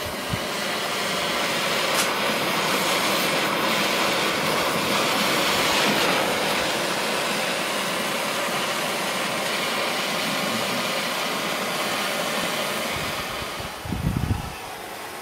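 Brazing torch flame burning with a steady hiss while heating a copper water pipe joint. The hiss drops somewhat near the end, with a few low thumps.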